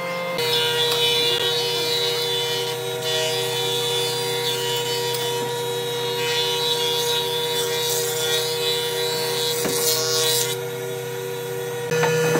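Wood planing machines, a jointer and a thickness planer, running steadily as boards are fed through and planed. The sound changes abruptly about half a second in and again near the end.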